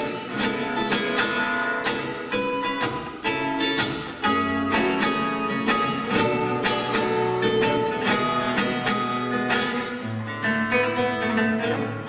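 Solo classical guitar, fingerpicked: quick runs of plucked notes ringing over sustained bass notes.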